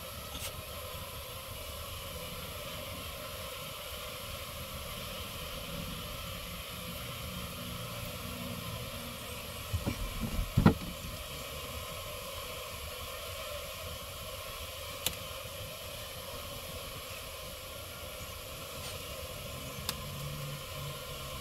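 A steady hum with a quick cluster of knocks and bumps about halfway through, as a hand handles the camera, and two faint clicks later on.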